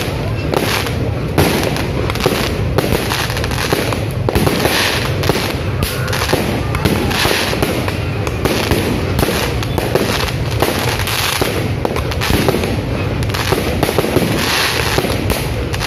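Aerial fireworks display: a dense, continuous run of bangs from bursting shells, many overlapping, with no break.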